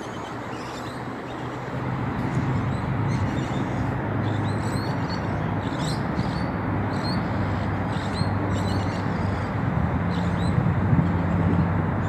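Birds chirping in many short, high calls over a steady rumble of road traffic, which grows louder about two seconds in.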